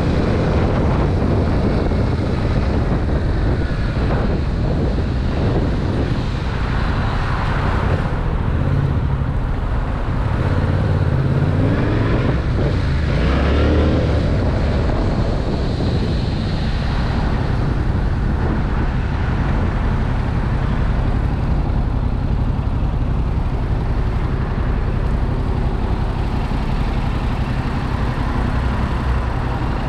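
2021 Yamaha MT-07's 689 cc parallel-twin engine on its stock exhaust, running under way as the bike is ridden, with the revs rising and falling through the gears, most clearly about 4 s and about 12 to 14 seconds in.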